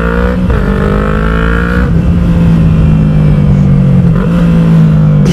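Yamaha MT-03's 321 cc parallel-twin engine, fitted with an aftermarket exhaust, pulling hard under acceleration. Its pitch climbs over the first two seconds, with a brief dip about half a second in that fits a gear change, then holds steady.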